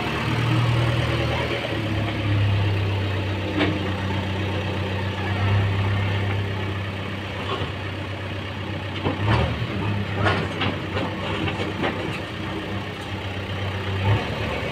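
Diesel engine of a JCB 3DX backhoe loader running steadily, its level rising and falling as the machine works. A few sharp metallic clanks come through, mostly in the second half.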